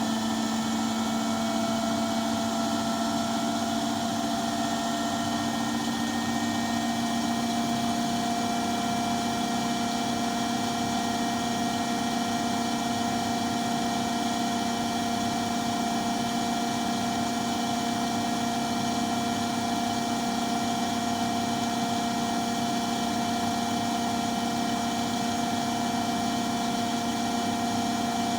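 Washing machine running mid-cycle with a steady, unchanging hum of several held tones: the odd noise its owner finds strange in the wash cycle.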